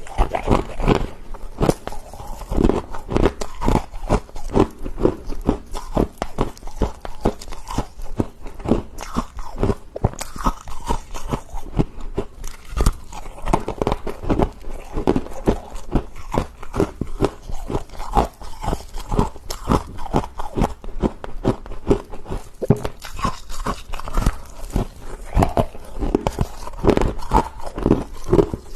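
Freezer frost being bitten and chewed close to the microphone: a fast, uneven run of loud crunches.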